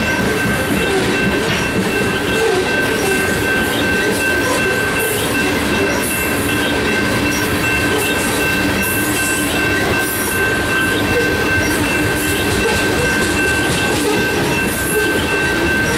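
Coal train of hopper cars rolling past: a steady rumble and clatter of steel wheels on the rails, with two steady high-pitched tones held throughout.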